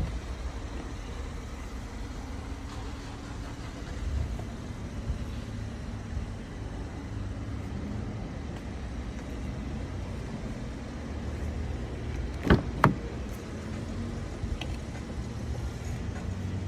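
Steady low rumble of a car, the Holden Calais idling. About twelve and a half seconds in come two sharp clicks in quick succession, a car door handle and latch being worked.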